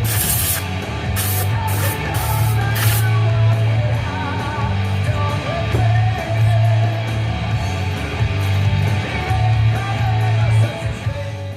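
Background rock music with electric guitar, bass and drums, fading out near the end.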